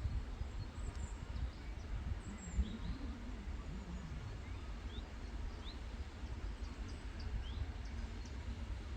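Outdoor ambience: small birds chirping in short, quick calls over a steady low rumble.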